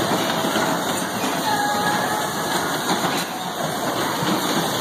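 Steady mechanical din of electric bumper cars running, their motors humming and wheels rolling across the ride floor.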